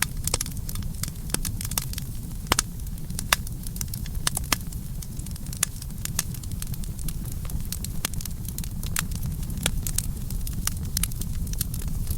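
Campfire burning: a steady low rumble with frequent sharp, irregular crackles and pops from the burning wood.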